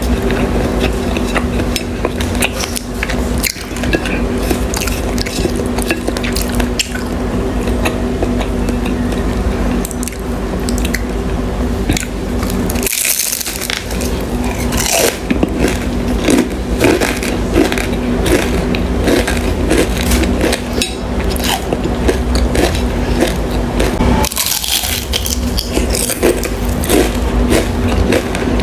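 Close-miked eating of dim sum: repeated biting and chewing with wet squishing and crisp clicks, over a steady low hum. Two brief hissy bursts come about 13 seconds in and again near the end.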